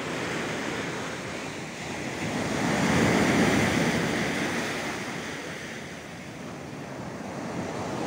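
Black Sea surf washing up on a sandy beach, a wave swelling to its loudest about three seconds in and then ebbing, with wind on the microphone.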